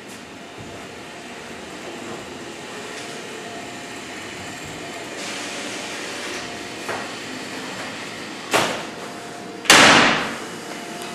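Parts of a homemade Rube Goldberg chain-reaction contraption set off one after another over a low steady hiss: a sharp knock, then about a second later a loud bang that dies away over about a second.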